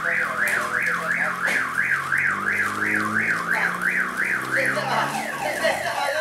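Electronic alarm siren wailing up and down in pitch, about three sweeps a second, that switches to a faster pattern of falling chirps about five seconds in.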